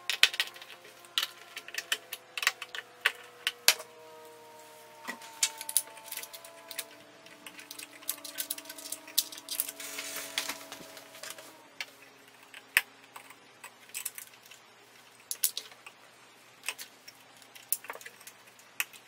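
Irregular small clicks and taps of a screwdriver, screws and metal parts against the synthesizer's metal chassis as the power supply is fastened back in place, with a brief scraping rustle about halfway through.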